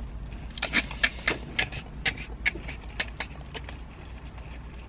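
About a dozen short, irregular clicks and smacks over roughly three seconds, over a steady low hum in a car cabin.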